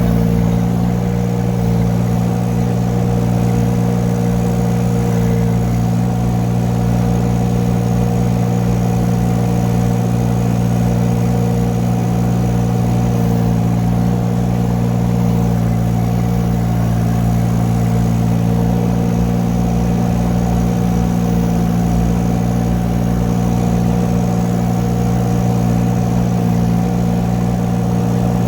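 A 2-ton mini excavator's diesel engine running at a steady speed as the machine tracks along, with no change in pitch.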